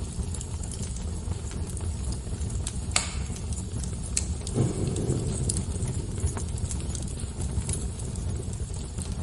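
Fire crackling: a steady low rumble with scattered sharp pops, the strongest about three seconds in, and a brief low surge a little after halfway.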